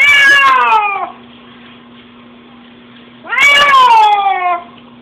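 Domestic cat meowing twice, two long, loud meows that fall in pitch, about three seconds apart: distress calls from a cat freshly sprayed by a skunk while it is being washed.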